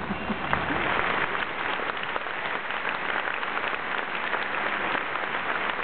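Large crowd applauding steadily, a dense patter of many hands clapping.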